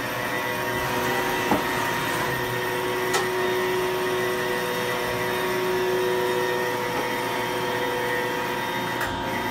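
Sharp SV-3220 vertical machining center running: a steady machine hum with a constant whine and hiss, and a couple of light clicks in the first few seconds.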